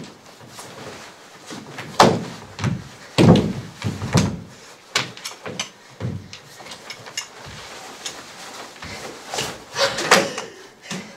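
Shoes and clothing being pulled off and dropped onto a stage floor: a string of irregular thumps and knocks, with cloth rustling between them.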